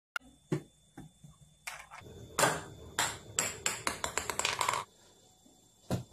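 Golf ball bouncing and knocking on hard floors and stairs: single sharp knocks, then a long run of quick bounces that come faster and faster before stopping short.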